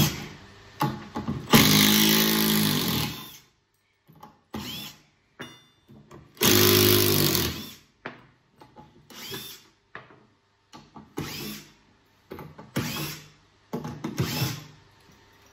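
Makita 18 V cordless driver backing screws out of a wooden snooker cushion block. There are two longer runs of about a second and a half each, then a string of short trigger bursts.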